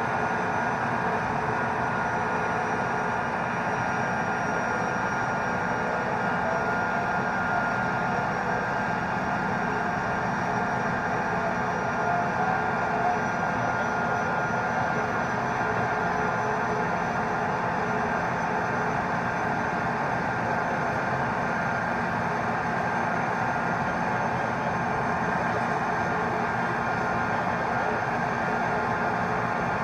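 M1A1 Abrams tank's gas turbine engine running steadily, a dense rushing noise with a thin high whine on top.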